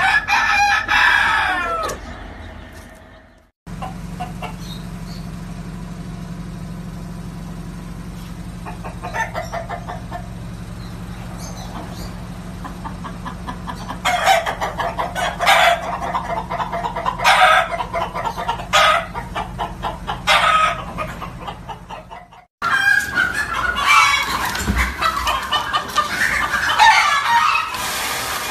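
Chickens clucking and calling: a falling call at first, then a run of short calls over a steady low hum, and near the end a whole flock clucking together. The sound cuts off abruptly and changes twice.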